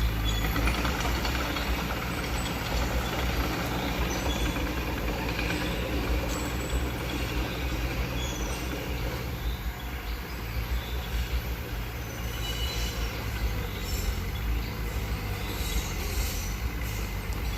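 Mitsubishi BD2F crawler bulldozer at work: its diesel engine runs steadily with a low hum, while short high metallic squeaks come and go from the steel tracks.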